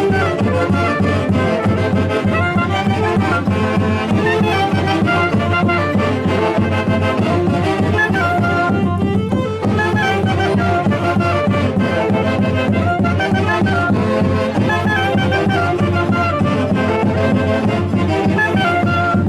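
Andean folk orchestra playing a lively tune, with several melody instruments together over a steady bass.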